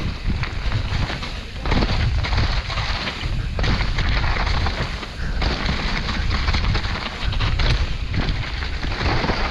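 Downhill mountain bike ridden fast over a rough, broken section of trail: a continuous rumble with frequent knocks, thumps and rattles as the bike takes the bumps and steps.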